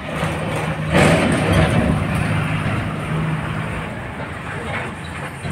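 Diesel engine of a Tata dump truck driving across a railway level crossing, loudest about a second in and then slowly fading as it moves off.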